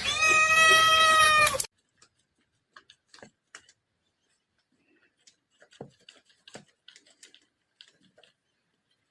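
A cat yowling in one long, steady, drawn-out call that cuts off suddenly about a second and a half in, followed by faint scattered taps and clicks.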